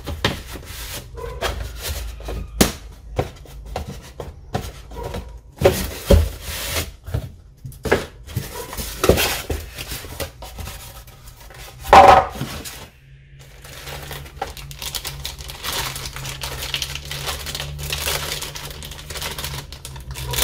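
Cardboard box and polystyrene foam packaging being handled, with irregular knocks and scrapes and one loud scrape about twelve seconds in. From about two-thirds of the way through, plastic bags crinkle and rustle steadily as parts are unwrapped, over a steady low hum.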